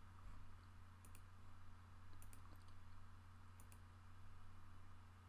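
A few faint computer mouse and keyboard clicks, a pair about a second in, a short cluster past two seconds and another pair near four seconds, over a low steady electrical hum.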